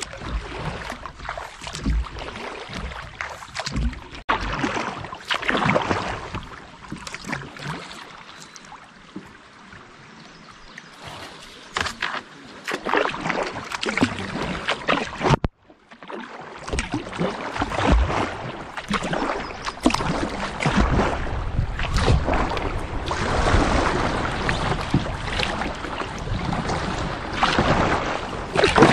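Kayak paddle strokes dipping and splashing in a shallow river, with water rippling around the hull. The sound cuts out for a moment about halfway through.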